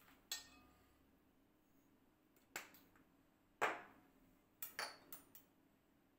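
A handful of separate light clinks and knocks from a glass spice jar, a metal spoon and a ceramic mixing bowl being handled. The first rings briefly, the loudest comes about three and a half seconds in, and a quick cluster of clicks follows near the end.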